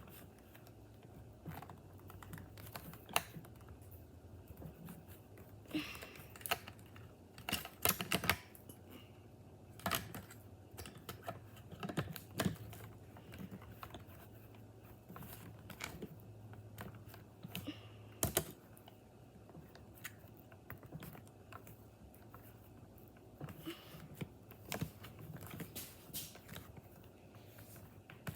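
Irregular sharp clicks and light taps, a few every couple of seconds, over a faint low steady hum.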